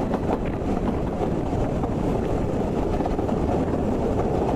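Narrow-gauge steam-hauled train running along, heard from an open coach window: a steady rumble of the carriages on the track, mixed with wind on the microphone.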